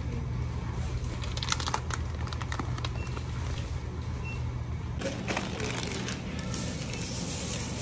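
Plastic snack bags crinkling as they are picked up and handled, in short crackly bursts, over a steady low hum. About five seconds in, the background changes to a brighter hiss.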